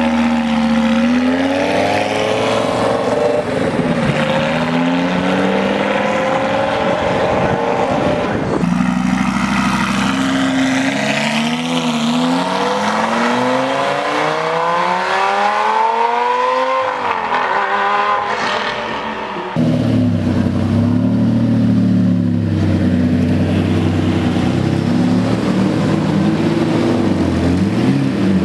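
Lamborghini engines in a run of short clips: a Gallardo's V10 accelerating away, its pitch climbing steadily for several seconds before dropping at an upshift. Then a Murciélago's V12 running at low revs, its pitch wavering as it pulls out.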